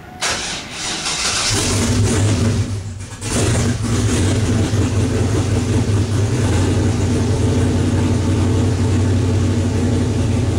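Freshly built, forged 408 cubic-inch LS V8 with twin 61 mm T3 turbochargers started for the first time. The starter cranks briefly, the engine fires about a second and a half in, dips for a moment around three seconds, then catches and runs steadily.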